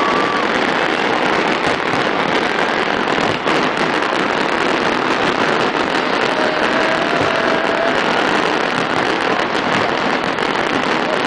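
Fireworks display: a steady, dense crackling barrage without single big bangs, with a few thin whistles over it.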